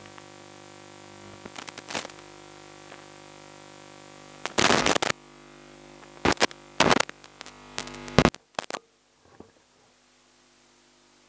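Steady electrical hum from the sound system with several loud bursts of crackling noise. The hum drops away abruptly about nine seconds in, leaving faint hiss.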